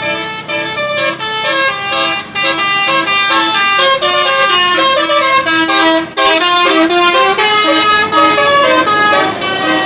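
Bus 'telolet' musical air horn playing a quick tune of short stepped notes, several tones sounding together, with brief breaks a couple of seconds in and about six seconds in.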